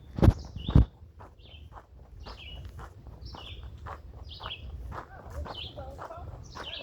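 Two footsteps crunching on gravel in the first second, while a bird repeats a short, high, down-slurred call about once a second.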